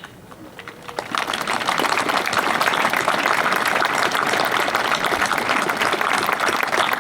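An outdoor crowd applauding. The clapping swells in about a second in and then holds steady.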